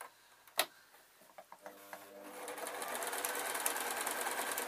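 Domestic electric sewing machine stitching through layered quilt fabric. After a sharp click about half a second in, the machine starts slowly about a second and a half in and speeds up to a fast, steady stitch.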